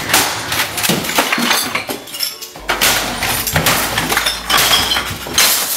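A man smashing his computer keyboard and the clutter on his desk: rapid, loud crashing and banging, with bottles and glass clinking. It cuts off suddenly at the end.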